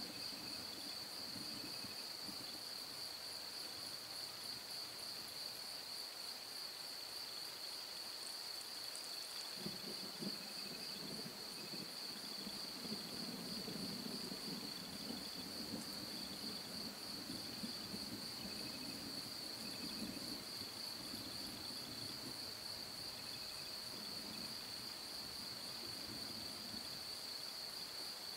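Crickets trill steadily, one high, even note. From about ten seconds in, distant thunder rolls beneath them as a long low rumble that swells and fades several times before dying away near the end.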